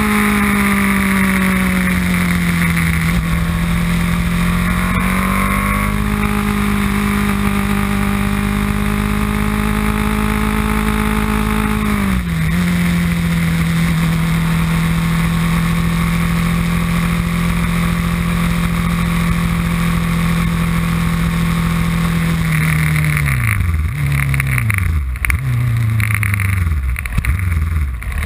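Small race car's engine heard on board, running at a steady high pitch under load with one sharp drop in revs about twelve seconds in. Near the end the revs fall in several quick steps as the car downshifts and slows to idle.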